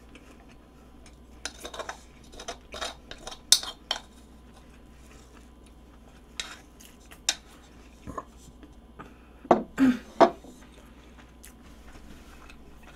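Eating utensils clinking and scraping against a ceramic rice bowl as the last spoonfuls of rice are scooped up: irregular light clicks, with a few louder knocks about ten seconds in.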